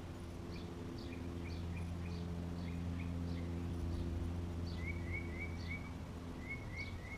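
Birds chirping over a low, steady hum of a distant motor that swells toward the middle and fades near the end; a quick run of chirps comes about five seconds in and again near the end.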